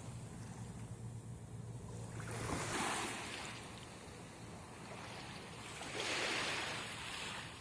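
Waves breaking and washing up the beach: one swell of surf about two and a half seconds in and another about six seconds in, with a low rumble under the first couple of seconds.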